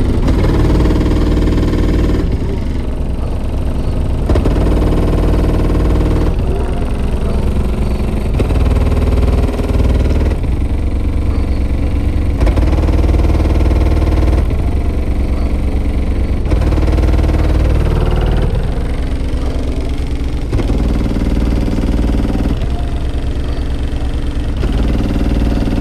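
Heavy bass music played through a single 24-inch Sundown Nightshade subwoofer inside a pickup truck, heard from outside the cab. Deep bass notes change about every two seconds and keep up a steady, loud level.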